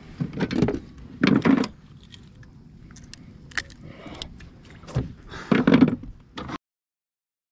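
Close handling noises: a few short rattling, knocking bursts and a couple of sharp clicks, then the sound cuts off dead about six and a half seconds in.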